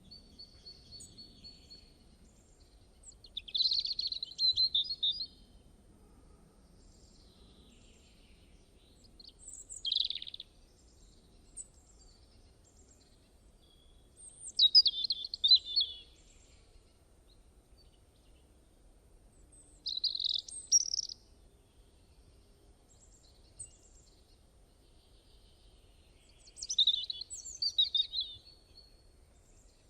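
Small songbird singing short, high, warbled phrases, one every five or six seconds, with quiet gaps between them.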